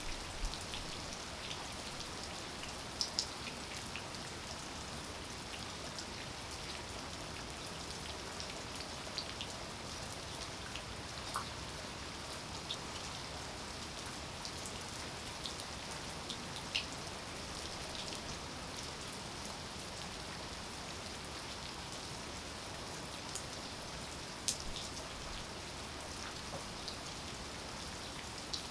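Steady rain falling, an even hiss with scattered sharp drops tapping on hard surfaces.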